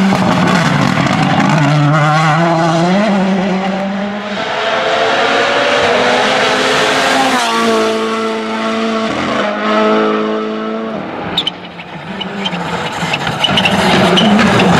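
Rally1 and Rally2 cars' turbocharged four-cylinder engines at full throttle on a tarmac stage, one car after another, revving hard with the pitch rising and falling through gear changes. The engine sound drops briefly about three-quarters of the way through, then comes back loud as the next car approaches.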